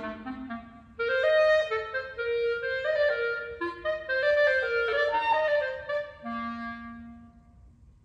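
Unaccompanied clarinet playing a phrase of quick notes that starts about a second in, ending on a long low note that fades away near the end.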